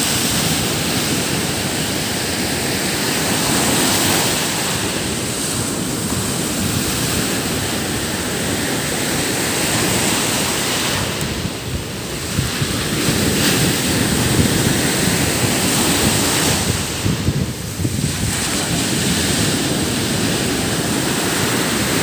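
Surf on a rough sea, waves breaking and washing up a sandy beach in a steady rush of noise with two brief lulls in the second half.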